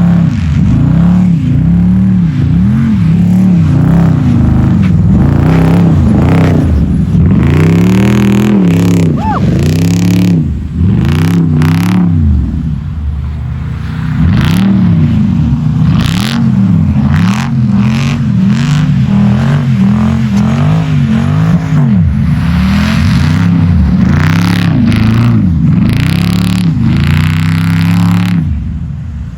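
The 6.4-litre Hemi V8 of a Jeep Grand Cherokee SRT8 is revved hard over and over, its pitch rising and falling about once a second, with a short easing off partway through.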